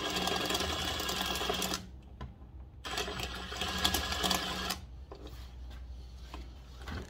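Cordless impact driver run twice for about two seconds each, running the fender-mount bolts down into the front fork after they were started by hand; a few light clicks follow.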